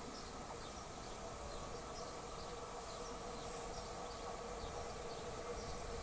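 Faint outdoor ambience: insects buzzing, with small repeated chirps over a steady low background hum.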